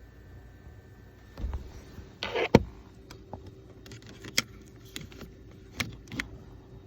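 Irregular metallic clinks and knocks of hand tools working on a car's steering column, with a short rattle and then one sharp knock about two and a half seconds in, and a few lighter clicks after.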